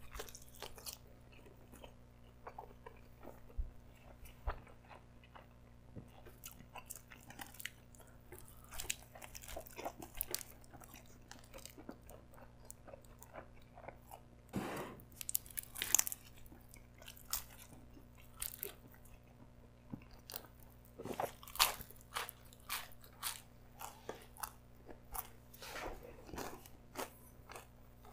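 Close-miked chewing of pizza crust: bites and irregular crunches as a piece of crust is bitten and chewed, a few louder crunches about halfway through.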